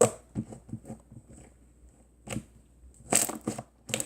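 Soft, stretchy slime being squeezed and stretched by hand, making sharp wet clicks and pops: several small ones in the first second, one about two seconds in, and a quick cluster near the end.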